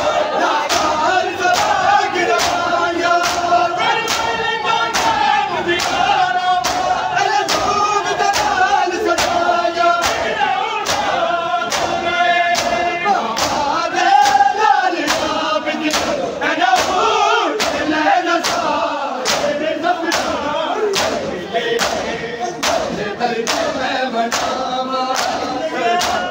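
Crowd of Shia mourners chanting a noha together while beating their chests (matam). The hand-on-chest slaps land in a steady rhythm, about two a second, under the singing.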